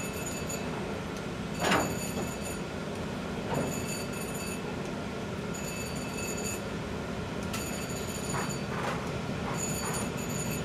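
Steady low mechanical hum of a railyard turntable carrying a passenger rail car, with a faint high whine cutting in and out. A metallic clank comes about two seconds in, and the turntable starts turning the car near the end.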